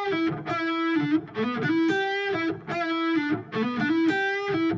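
Eight-string electric guitar with distortion playing a lead lick in E minor harmonized in three voices. Short phrases of held notes, each under a second, repeat with brief gaps between them.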